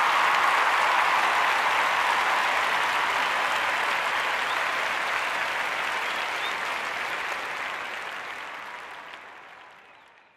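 Applause, steady at first and then fading away over the last three seconds or so.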